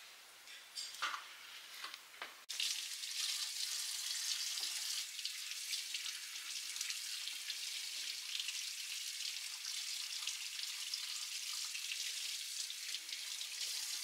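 A few faint clicks, then a steady, even hiss that starts abruptly about two and a half seconds in, the kind of noise made by food sizzling in a pan or a running kitchen tap.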